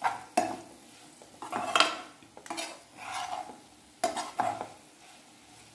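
Metal spoon scraping round a frying pan as sliced bitter gourd frying in it is stirred and tossed with spice powder and salt. It comes in about seven uneven strokes that stop a second before the end.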